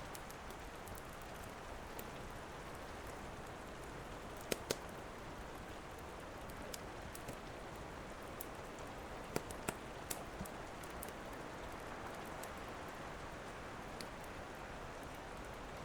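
Steady rain with a wood fire crackling over it: scattered sharp pops, two close together about four and a half seconds in and a few more around nine to ten seconds.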